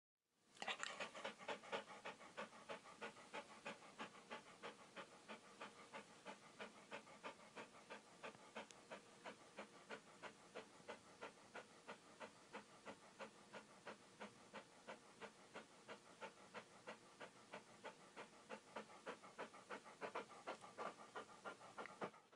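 Bernese mountain dog panting quietly and steadily with its tongue out, about three breaths a second.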